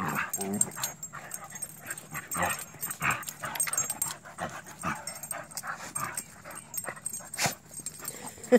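Several dogs play-fighting at close range, making short, irregular vocal noises as they wrestle.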